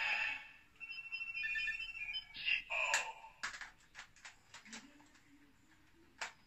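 Toy Kamen Rider Zi-O Ridewatch giving out electronic beeping tones for about two seconds, then a run of sharp plastic clicks as the watch is handled and slotted into the toy Ziku-Driver belt.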